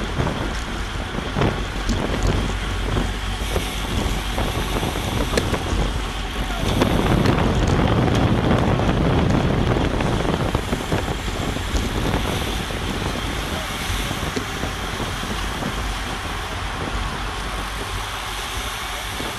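Wind rushing over the microphone of a camera on a racing bicycle at around 25 mph in a pack, mixed with tyre and road noise. The rush grows louder about seven seconds in, then eases back after a few seconds.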